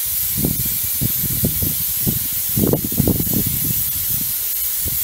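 Aerosol can of grey primer spraying in one long steady hiss that cuts off right at the end. Wind buffets the microphone underneath it.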